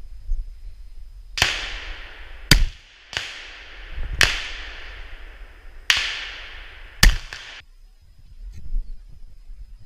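Shotgun shots during a wild boar hunt: about six shots over some six seconds, each followed by a long ringing echo through the forest. Two of them, about a second and a half in and seven seconds in, are sharper and louder than the rest.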